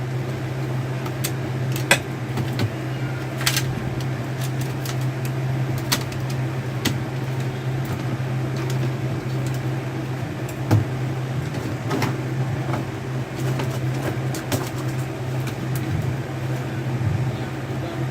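Small scattered clicks and taps of tools and plastic parts as a laptop is unscrewed and taken apart, over a steady low hum.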